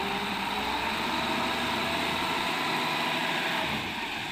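Diesel dump truck engine running steadily while its hydraulic hoist raises the tipper bed.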